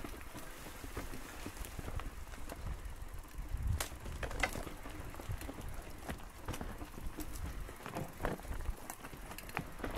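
Bicycle rolling over a rough trail: irregular clicks and rattles over a low rumble.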